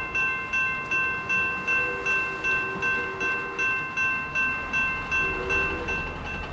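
Railroad crossing bell ringing at an even pace, about two to three strikes a second, each strike ringing out before the next. It stops near the end.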